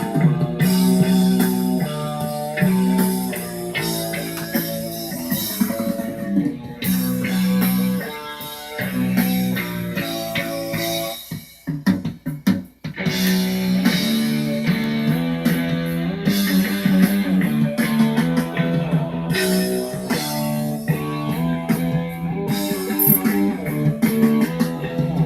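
Background guitar music with a steady rock feel; it breaks off briefly near the middle, then picks up again.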